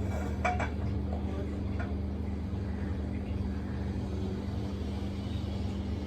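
A steady low hum, like a running kitchen motor or burner, with a few faint clicks of utensils in the first two seconds.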